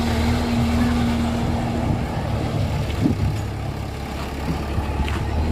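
Heavy diesel engine running steadily with a low rumble, a steady whine over it for the first two seconds, and a single knock about three seconds in.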